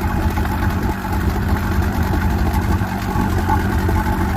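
1991 Mariner (Mercury) 115 hp inline four-cylinder oil-injected two-stroke outboard running steadily at an even speed, without revving. It is running well, its throttle cable and spark plugs freshly replaced.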